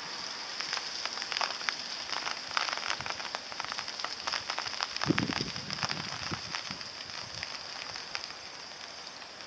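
Rain falling: irregular crackling taps of drops close by over a steady high hiss, with a dull thump about halfway through.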